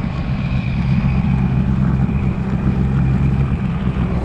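Yamaha 50 hp outboard motor running steadily with the boat under way, and water rushing and splashing past the hull.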